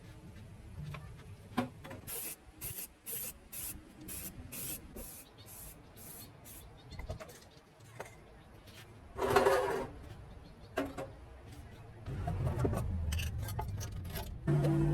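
Hand work on a metal part: a run of short rubbing strokes, about two a second, then sparser strokes and one longer, louder scrape about nine seconds in. A low hum comes in near the end.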